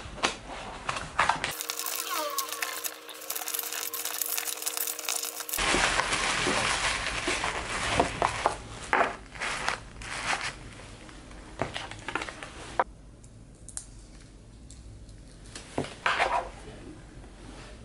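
Packing by hand: paper and tissue rustling and crinkling, with light taps and clicks of small white cardboard boxes being set down and closed, and stickers being pressed on.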